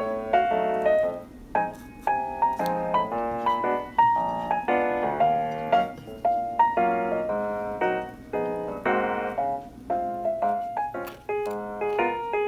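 Background music: a piano tune of short notes and chords in a steady rhythm.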